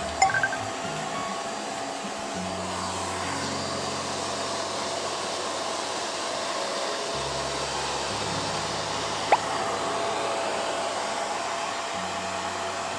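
Hand-held hair dryer running steadily, blowing air over a dog's wet coat after a shampoo. A sharp click about nine seconds in.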